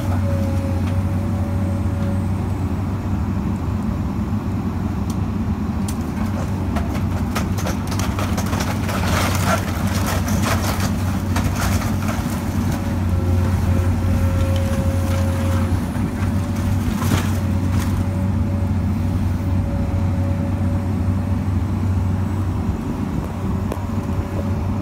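Komatsu PC200 hydraulic excavator's diesel engine running steadily, with a thin whine coming and going, while the bucket tears into a wooden house. Cracking and crashing of splintering timber and falling debris come in a dense run in the middle stretch and once more in a short burst later.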